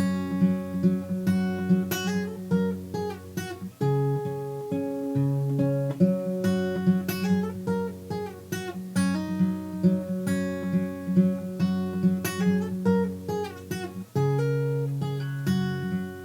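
Solo acoustic guitar playing the song's repeating riff with no singing. Quick plucked notes run over a ringing bass note, and the bass shifts to a lower note twice, about four seconds in and again near the end.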